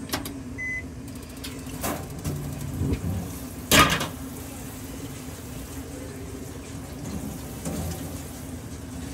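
Kitchen utensils knocking and clinking against cookware over a steady hum, with the loudest knock nearly four seconds in.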